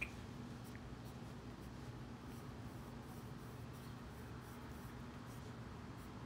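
Pencil sketching on drawing paper: faint, irregular scratching strokes over a steady low hum.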